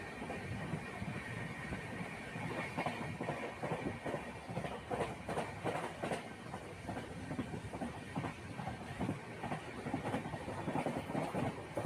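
Steady rumble of a moving vehicle with irregular rattles and clicks.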